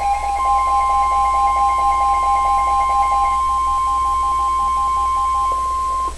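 NOAA Weather Radio 1050 Hz warning alarm tone: one steady, piercing single tone that stops abruptly about six seconds in, just before a warning is read. A second, lower tone under it pulses rapidly, then slows to about four beeps a second and stops a little earlier.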